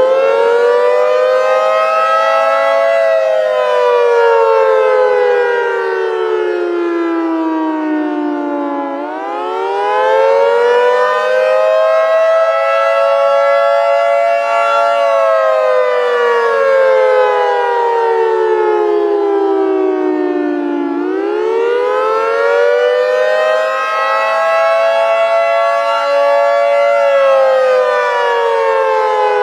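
Civil-defense-style warning siren sounding a slow wail as an emergency alert: its pitch climbs for about six seconds, then sinks for about six, over and over, giving about two and a half rise-and-fall cycles.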